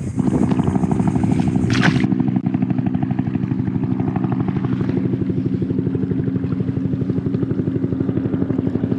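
Bixpy Jet electric jet motor running steadily to push an inflatable paddle board: an even, motor-like hum with a fast, regular pulse.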